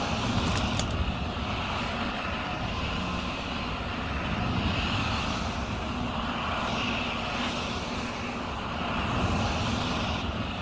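A steady rumbling, roaring noise like a distant engine, with a few sharp clicks in the first second.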